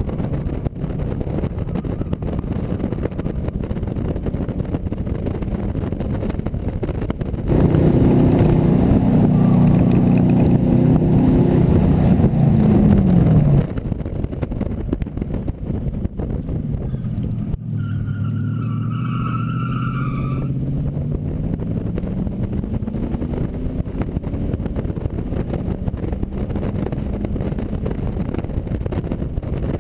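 AC Cobra Mk IV's V8 engine pulling hard up a mountain race course, with wind noise throughout. About a quarter of the way in it gets louder and the revs climb, then drop suddenly. A little past halfway the revs dip and build again, with a brief tyre squeal.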